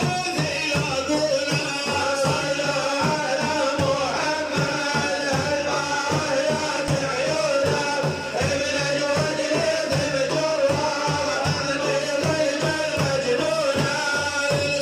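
A male voice singing an Islamic devotional praise chant to the Prophet, with a sustained, wavering melody over steady, rapid hand-drum beats.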